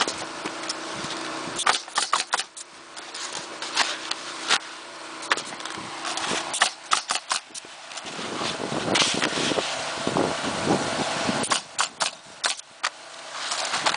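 Pneumatic coil roofing nailers firing into asphalt shingles in quick runs of sharp shots, over a steady mechanical hum.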